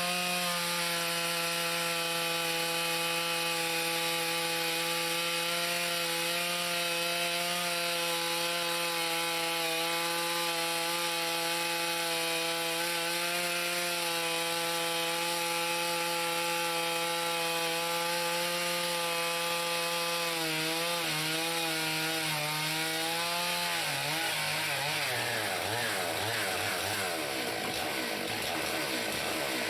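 Two-stroke chainsaw on a chainsaw mill, running at a steady high pitch while ripping a log lengthwise into boards. Past the middle the engine note wavers, then falls and turns unsteady as the saw comes off full throttle.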